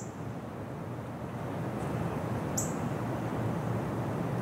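Steady outdoor background rumble that grows a little louder, with two short, high bird chirps: one at the start and one about two and a half seconds in.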